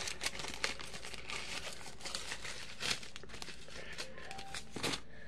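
Small clear plastic bag crinkling as it is handled, a steady run of small crackles with a louder crinkle just before the end.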